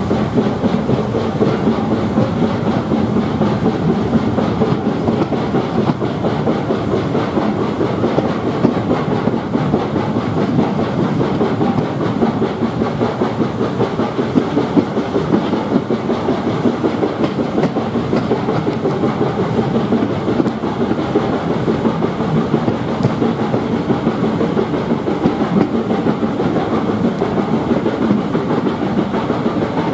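BR Standard 9F 2-10-0 steam locomotive working a train, heard from a carriage window: a steady, rapid exhaust beat mixed with the clickety-clack of the coaches' wheels over the rail joints.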